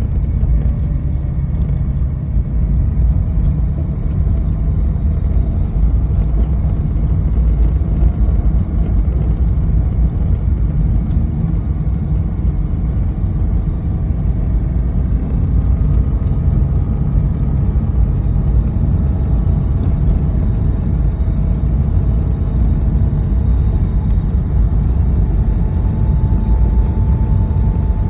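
Toyota 86 (ZN6) on the move: a steady low rumble with faint whining tones that slowly rise and fall, and faint high ticks now and then. This is the unidentified abnormal noise, which comes on mainly on steep uphill climbs and has persisted despite new stabilizer bushings, upper mounts, V-belt, tensioner, idler pulley and power steering damper.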